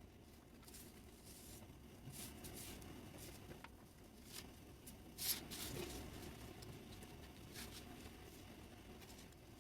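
A sheet of paper being folded by hand: faint, irregular rustles and swishes as it is handled and creased, with one sharper crinkle about five seconds in.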